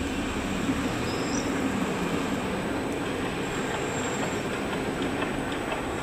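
Steady low rumbling background noise, holding an even level throughout.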